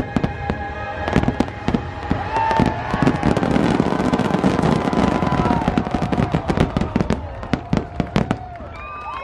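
Fireworks display: a rapid volley of bursting shells and crackling, many sharp bangs, thinning out near the end.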